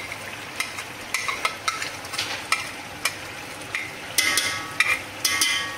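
A metal spoon scraping and clinking against metal while yogurt is worked into a pot of hot masala, which sizzles underneath. Two longer, squeaky scrapes come near the end.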